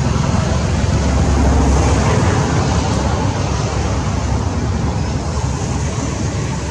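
Steady road traffic noise, loudest about a second and a half in, then slowly easing off.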